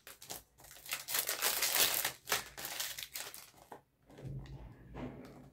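Clear plastic shrink-wrap crackling as it is crinkled and pulled off a perfume box, loud and dense for nearly four seconds. Then quieter rustling and handling of the cardboard box as it is opened.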